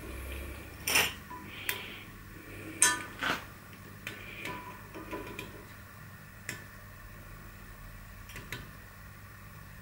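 Light metal-on-metal clinks and taps of a steel caliper being set against and into the bore of a steel tractor steering arm on a steel table, with two sharper knocks about one second and three seconds in, then scattered small ticks.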